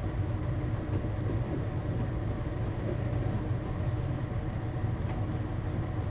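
Olsen furnace running just after start-up: a steady low rumble with no breaks.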